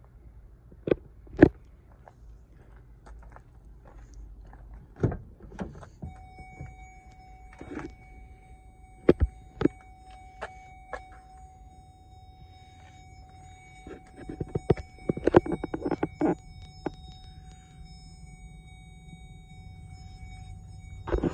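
Clicks and knocks from the driver's door of a pickup being opened and from handling in the cab, with a dense run of knocks near the end. A steady high tone starts about six seconds in and holds.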